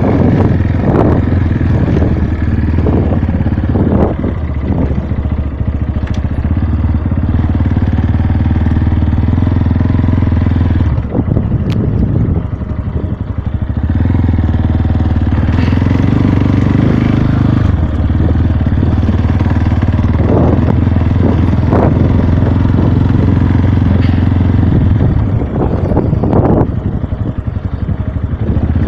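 Motorcycle engine running under way on a rough dirt road, heard from the rider's seat. The engine eases off briefly about eleven seconds in and again near the end, then picks back up.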